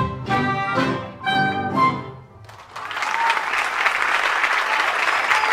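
A small tango ensemble of guitars, flute, violin, melodica and drum kit plays its last few short chords, which ring out and die away. About two and a half seconds in, the audience breaks into steady applause.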